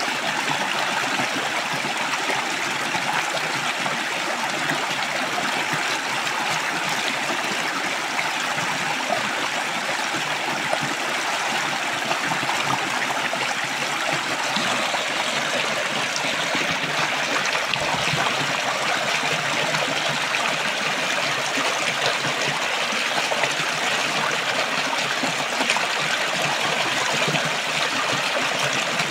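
A rocky stream rushing and splashing over a small cascade between boulders: a steady, unbroken rush of water heard up close.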